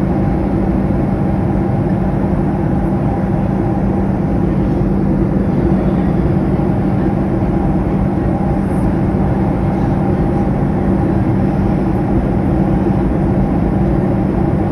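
Steady, unbroken airliner cabin noise in cruise flight: engine drone and rushing air, with a low hum running through it.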